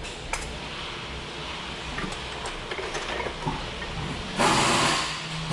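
Faint small clicks and knocks of hands handling a brake caliper, then, near the end, a loud steady hiss lasting about a second.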